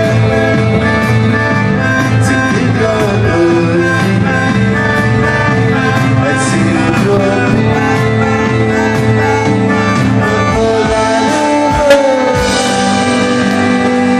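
Live rock band playing loudly: electric guitars, drum kit and keyboard, heard from the audience, with one sharp hit near the end.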